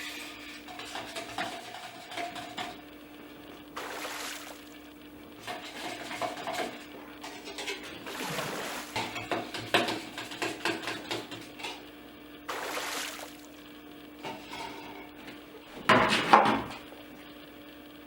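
Kitchen sounds from making slime: a utensil clinking and scraping against a bowl, with several short rushes of pouring or running water, the loudest near the end, over a steady low hum.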